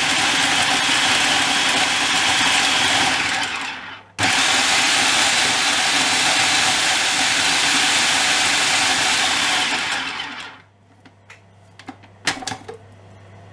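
Aigostar food processor's motor and blades running at full power, chopping diced serrano ham, with a steady loud whirring roar. It stops briefly about four seconds in, starts again, and winds down about ten seconds in. A few plastic clicks and knocks follow as the processor's lid is handled.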